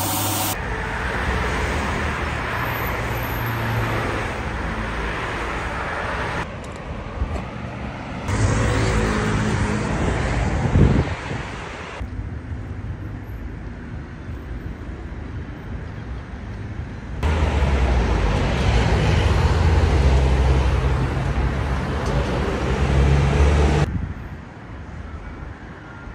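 City street traffic: cars running and passing on a road, in several short clips that cut in and out every few seconds, with a heavier low rumble in the later part.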